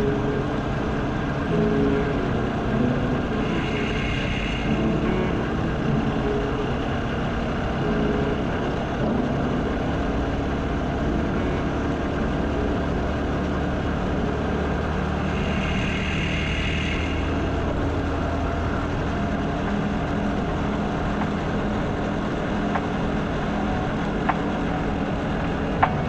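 Motorcycle running steadily along a road. Two brief high-pitched tones sound about four seconds in and again about sixteen seconds in.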